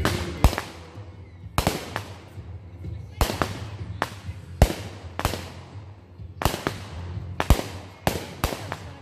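Aerial fireworks going off: a rapid series of sharp bangs and pops, many coming in close pairs, about a dozen through the stretch.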